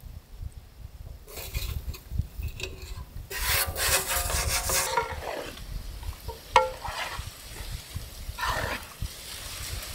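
A large spoon stirring and scraping through a big pot of vegetable masala noodles as the Maggi masala is mixed in, in uneven strokes that are busiest in the first half, with a sharp knock about two-thirds of the way in.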